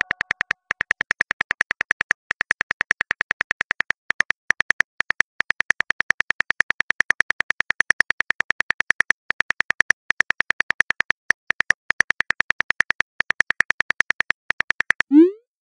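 Smartphone keyboard click sounds: rapid, even taps about seven a second as a text message is typed, with short breaks between bursts. The clicks stop shortly before the end, followed by a brief rising tone.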